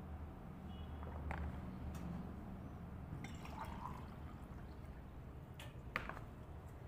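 Water poured from a steel jug into a steel tumbler, with a few sharp clicks of the metal vessels.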